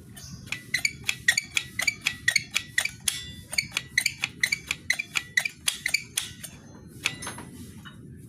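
Metallic, can-like clanking rattle from a drum-brake motorcycle: a quick run of sharp ringing clinks, about four or five a second, that thins out to a few stray ones after about six seconds. The rattle is put down to the drum brake.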